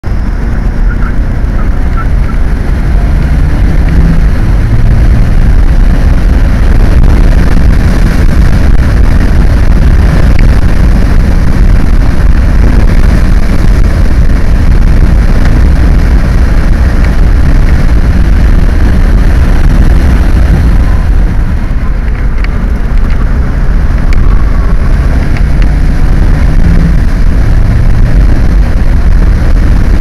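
Toyota MR2 at speed on a race track, heard from inside the cabin: loud, continuous engine and road-and-wind roar, with the engine note shifting now and then.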